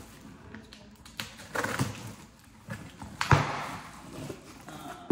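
Cardboard shipping box being opened and unpacked by hand: scattered rustles and scrapes of cardboard, with one sharper knock a little past halfway.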